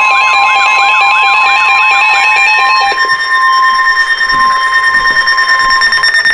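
Weather-radio emergency alert attention signal before a severe thunderstorm warning. A loud, steady alarm tone has a fast, repeating warbling sweep layered over it for about the first three seconds. The steady tone then sounds alone and cuts off abruptly at the end.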